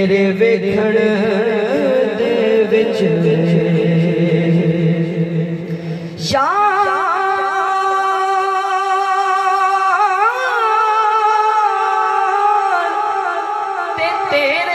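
A man singing a naat in long, drawn-out melodic phrases, his voice amplified through a microphone. About six seconds in he rises sharply onto one long high note and holds it, with a small turn in pitch partway through.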